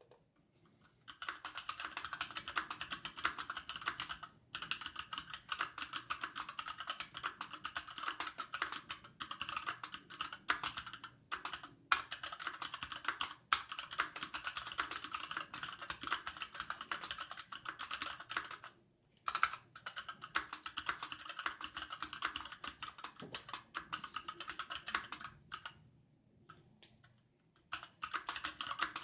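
Fast, continuous typing on a Varmilo VA68M mechanical keyboard with Gateron Red linear switches, dye-sublimated PBT keycaps and a solid aluminium case: a dense stream of key clicks and clacks, with short pauses a few times and a brief sparser patch near the end.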